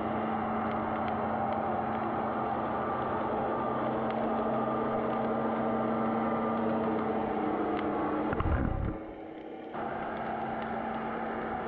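Steady engine hum of a boat motor carried through the water and picked up by an underwater camera, muffled, with faint clicks. A low thump comes about eight and a half seconds in, and the hum drops for a moment before going on.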